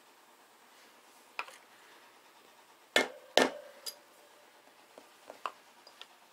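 Rubber mallet tapping a steel valve stem seal tool twice in quick succession, driving a stem seal down onto the valve guide of a VR6 cylinder head; the tool rings briefly after the taps. Fainter clicks of metal parts being handled come before and after.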